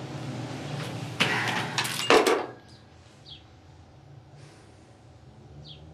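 Rustling and clicking from handling a phone and clothing, loud for about a second, as the phone is lowered from the ear. Then a quiet room with a low hum and a few faint short squeaks.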